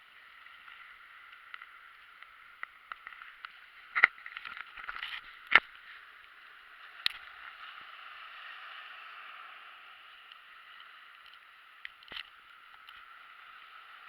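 Steady sloshing and washing of sea water, with a few sharp knocks, the loudest about four and five and a half seconds in.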